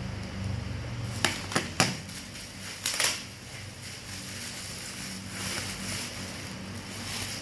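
Handling noises: a few sharp clicks and knocks about a second in, then a short crinkling rustle near three seconds, over a steady low hum.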